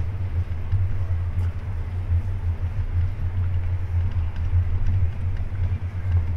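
Steady low rumble of city street ambience, wavering in level, with a few faint ticks over it.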